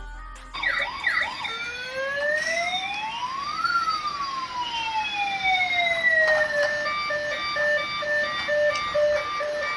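Toy police car's electronic siren. It starts with a quick warbling yelp, then gives one slow wail that rises and falls, and from about two-thirds in changes to a run of short repeated beeps.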